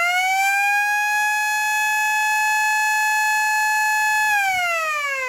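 Blast warning siren sounding before a rock blast: it winds up, holds one steady note, then winds down slowly from about four seconds in.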